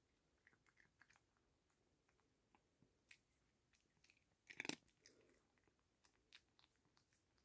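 Domestic cat chewing a treat: faint, irregular small clicks and crunches, with one louder, brief noise about four and a half seconds in.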